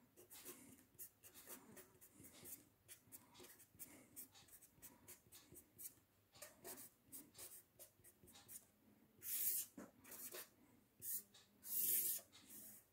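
Pen writing on paper: many short scratchy strokes of handwriting. From about nine seconds in come a few longer, louder strokes as lines are drawn.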